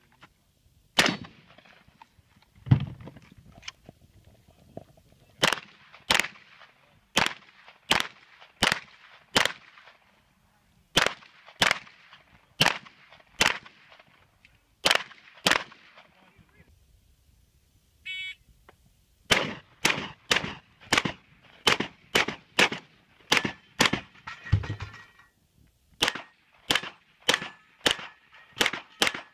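A competitor's rifle and semi-automatic handgun firing strings of single shots, mostly about two a second, with a short break about two-thirds through that holds a brief light metallic rattle, then a faster run of shots.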